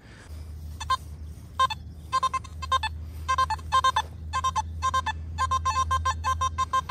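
Nokta Makro Simplex+ metal detector beeping as its coil sweeps over a target: short electronic tones, a few at first, then coming more and more often toward the end, over a steady low rumble. The hunter reads the tone as a possible penny signal.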